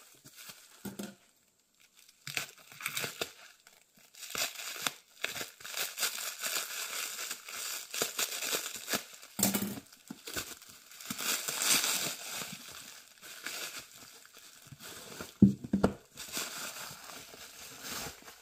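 Plastic shrink-wrap being torn and crinkled off a bundle of books, in irregular rustling spells. A couple of sharp thuds come near the end.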